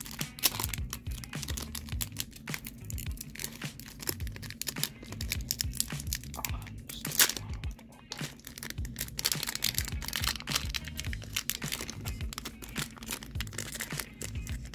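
Foil wrapper of a hockey card pack crinkling and tearing in the hands as it is worked open with some difficulty, with one sharp loud crackle about seven seconds in. Background music with a low pulsing beat plays throughout.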